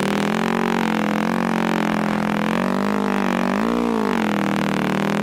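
Yamaha YFZ quad's engine running at a steady pitch under way, with a brief rise and fall in pitch about four seconds in.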